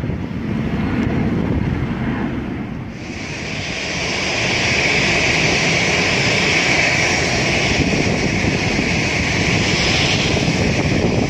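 Jet airliner engines: a distant low rumble from a climbing jet, then about three seconds in an abrupt change to a steady, hissing jet roar from an airliner at the runway.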